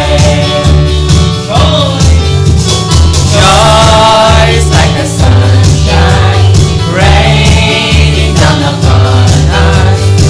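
Upbeat gospel praise-and-worship song: a group of voices singing together over a steady bass line and drum beat.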